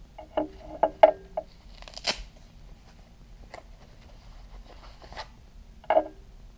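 Handling noise from a plastic laser distance measure and its fabric pouch. A quick run of sharp clicks and knocks comes in the first second and a half, a short rasp of fabric follows about two seconds in, and there is another knock near six seconds.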